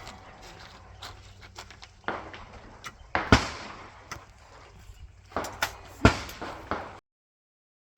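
Shotgun shots on a clay range: two loud reports about three seconds apart, each with a short echo, among fainter cracks. The sound cuts off abruptly about a second before the end.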